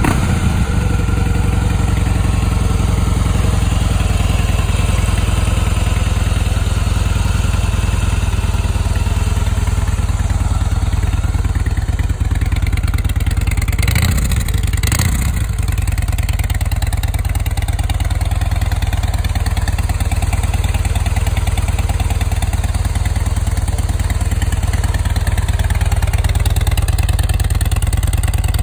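2009 Harley-Davidson Heritage Softail's air-cooled V-twin engine running steadily at idle through its chrome exhaust, with a short burst of extra noise about halfway through.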